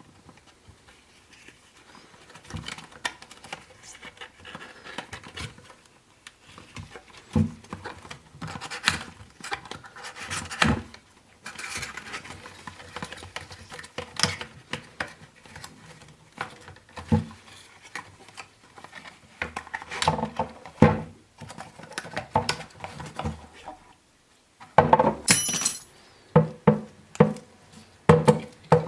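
Packaging of a cologne being handled in an unboxing: irregular taps, knocks and rustles of the box and its contents, with a busier stretch of rustling and clicks near the end.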